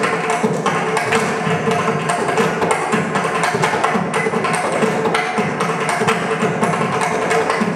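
Several mridangams, South Indian double-headed barrel drums, played together in a dense, fast run of hand strokes over a steady ringing pitch from the tuned drumheads.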